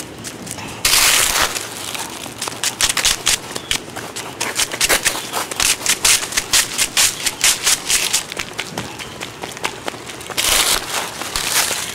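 Running footsteps crunching over dry leaves and gravel, a quick, even series of crunches several times a second, with two longer rustling bursts, one about a second in and one near the end.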